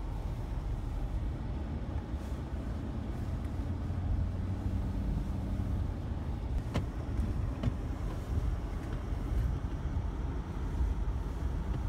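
A Ford F-350 pickup running, heard from inside the cab as a steady low rumble. Two short clicks come about seven and eight seconds in.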